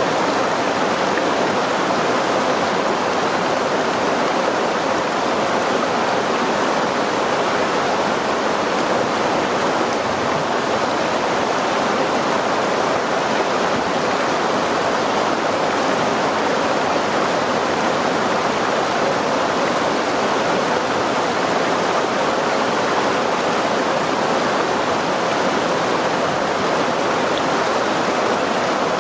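A stream's water rushing over rocks in a steady, even wash.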